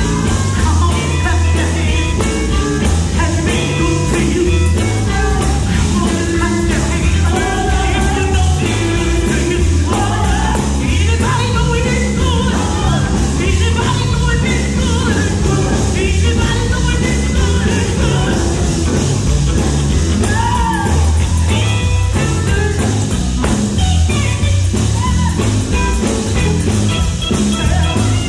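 Live gospel music played loud through a PA: a vocal group singing over electric guitars and a strong bass.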